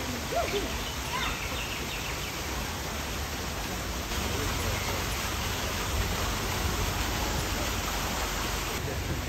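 Steady outdoor background hiss, a little heavier in the low end from about halfway through.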